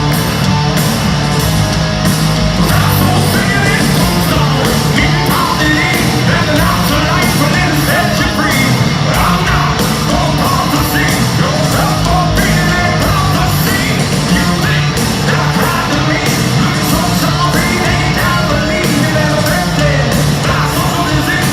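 Loud hard rock music: distorted guitars and drums under shouted vocals.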